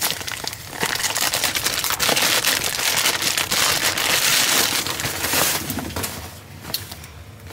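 Clear plastic bag crinkling and crackling as a pillow is pulled out of it, tailing off near the end.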